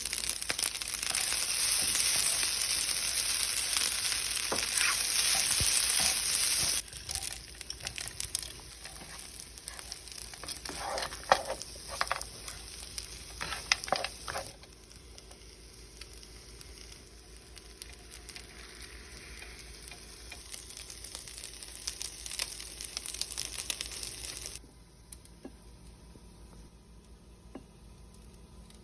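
Fried rice sizzling in a hot pan and being stirred, with a spatula scraping and clacking against the pan. The sizzle is loud for the first several seconds, then drops abruptly to a quieter hiss with sharp scraping strokes, and fades lower still near the end.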